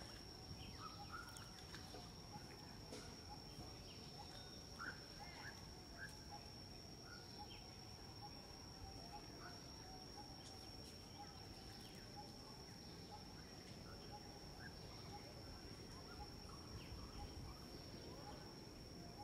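Faint outdoor background: a steady high-pitched insect drone, with scattered short chirps mostly in the first half.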